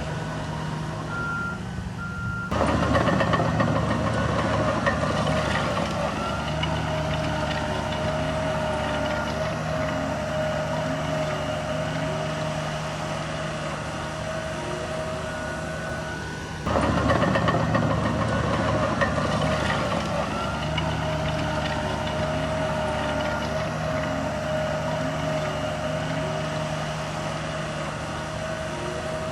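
Heavy diesel earth-moving machinery, dump trucks and a bulldozer, running steadily with a constant high tone over the engine sound. The sound jumps louder suddenly about two and a half seconds in and again a little past halfway.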